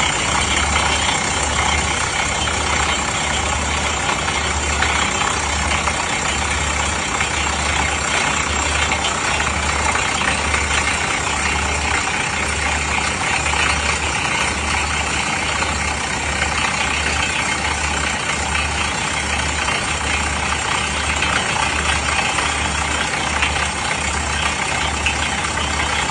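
Excavator-mounted pneumatic rock drill running: a steady, loud rattle and hiss of the percussion hammer and compressed air over a deep engine throb that pulses about once a second.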